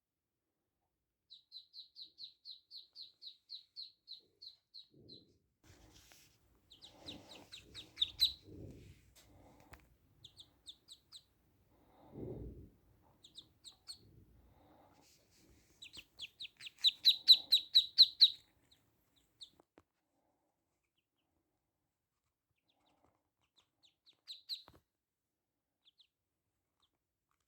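Three-day-old ducklings peeping in quick runs of high, repeated calls, several a second. The longest and loudest run comes about two-thirds of the way through. A few soft low rustles or bumps sound between the runs.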